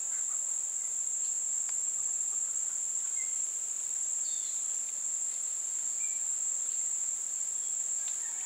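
A steady, high-pitched insect chorus that runs on unbroken, with a few faint short chirps here and there.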